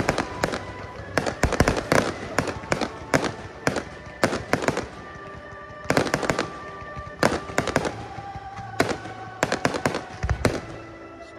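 Aerial fireworks firing volley after volley: sharp bangs arriving in quick clusters of several at a time, a cluster every second or so.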